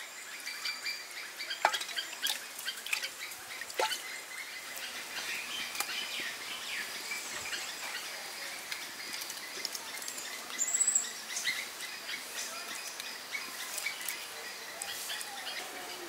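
Birds chirping and calling, with many short high chirps and one loud, arched chirp about eleven seconds in. Two sharp clinks in the first four seconds, as of a metal ladle against the aluminium cooking pot.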